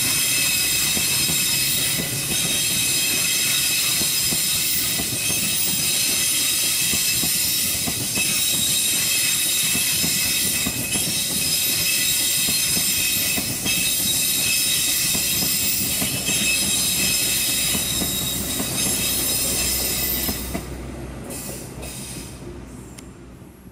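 Wheels of the Harina passenger train's carriages squealing against the rails as they pass: a shrill, very noisy screech of several steady high tones over the rumble of the wheels on the track. It fades away near the end as the last carriage goes by.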